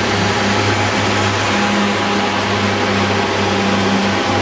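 Diesel multiple unit's underfloor diesel engine running as the train moves slowly past at close range: a loud, steady drone with a deep hum.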